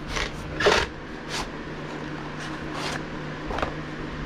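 Packaging being handled while the drill bit set is unwrapped: a series of short rustles and scrapes, about six in four seconds, over a steady low hum.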